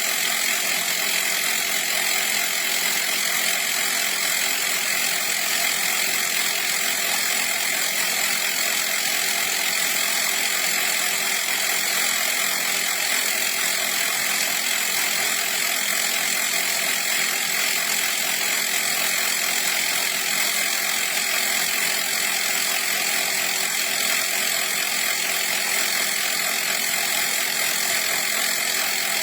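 CYCPLUS 150 PSI cordless mini air compressor running steadily, an even mechanical buzz with a high whine that holds one pitch throughout.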